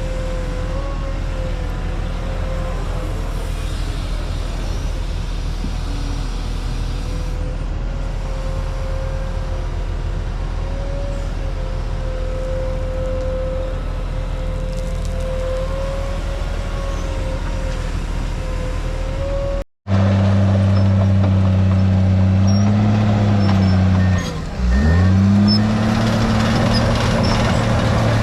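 Diesel engine of a heavy earthmoving machine running under work, with a steady whine wavering slightly in pitch over its low note. About twenty seconds in, the sound cuts to a louder, deeper engine note, whose pitch drops briefly a few seconds later and comes back up.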